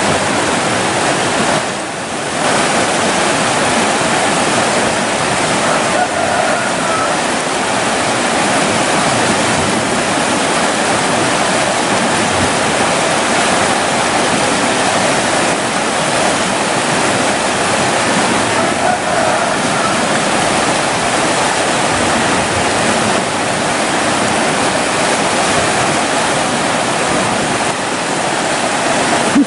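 Fast water rushing and churning down a concrete-lined irrigation canal: a loud, steady rushing noise that dips briefly about two seconds in.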